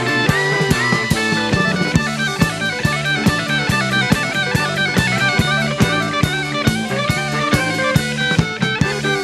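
Instrumental band music: electric guitar over bass and drum kit, with a steady beat and no singing.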